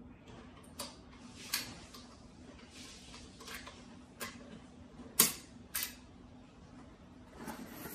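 Clicks, taps and light scrapes of hard plastic and metal parts being handled and fitted onto the aluminium body of an SX-10 slingshot rifle, about half a dozen separate knocks, the loudest about five seconds in.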